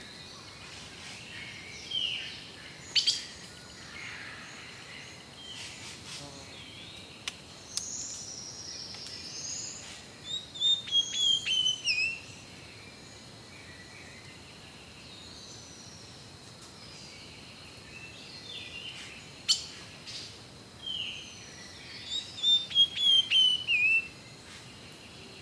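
Wild birds calling and singing, with a loud phrase of quick whistled notes falling in pitch heard twice, once near the middle and again near the end. Scattered chirps and short whistles between, over a steady high-pitched hum.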